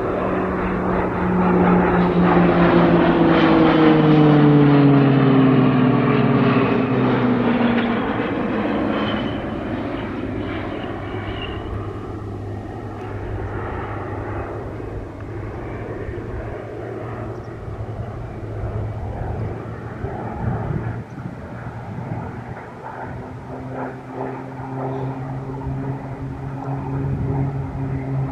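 PZL-130 Orlik turboprop trainer aircraft flying past: the propeller drone is loudest a few seconds in and falls in pitch as they pass, then fades to a steadier distant drone. Another steady propeller tone comes in near the end.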